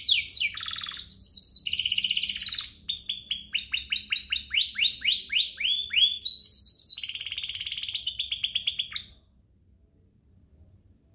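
Domestic canary singing: fast trills of steeply falling high notes alternating with buzzy rolls. The song stops suddenly about nine seconds in.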